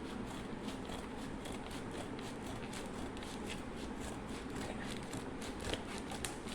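A tool kit's packaging being cut open and handled: a run of small crackling ticks and rustles, about three or four a second, over a steady low background hum.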